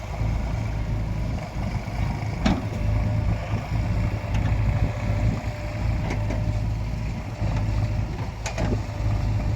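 JCB 3DX backhoe loader's diesel engine running steadily under working load. Sharp knocks come through it, one about two and a half seconds in and one near the end.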